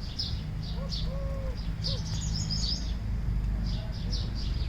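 Garden birds chirping, with short high chirps repeated every fraction of a second and a busier warbling phrase about two seconds in. A few lower, arching notes come about a second in, over a steady low rumble.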